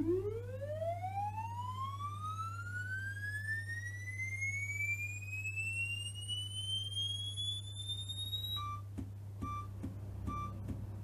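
Commodore 128's SID sound chip playing a diagnostic program's test tone: one pure-sounding pitch glides steadily upward for about eight and a half seconds and cuts off suddenly. Short, evenly spaced beeps follow, a little under a second apart, over a steady low hum.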